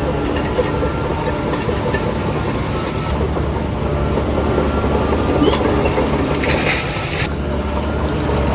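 Heavy diesel earthmoving machinery running steadily, with metallic rattling. A short hiss comes about six and a half seconds in.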